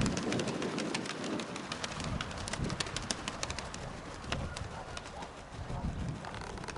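Domestic pigeons cooing in low, pulsing calls, with many sharp clicks and crackles over them.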